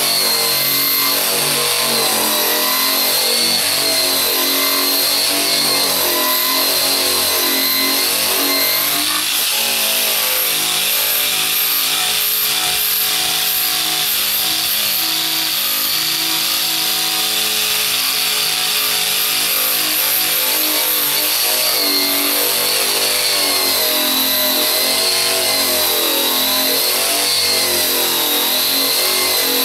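Eastwood Contour SCT rotary surface-conditioning tool running steadily, its abrasive drum stripping paint from a car's trunk lid. It makes a steady motor whine over a gritty grinding hiss, and the whine wavers in pitch.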